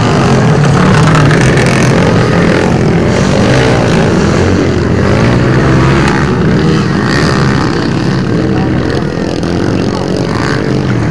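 Several motocross dirt bikes racing past, their engines revving up and down as the riders work the throttle, loud and fading a little near the end.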